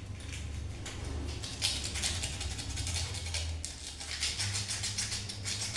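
Emery paper rubbing inside a CPVC pipe socket: quick, repeated scratching strokes as the groove inside the socket is sanded flat.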